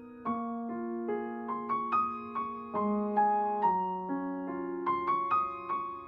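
Background piano music: a slow, gentle melody of single struck notes over sustained lower notes.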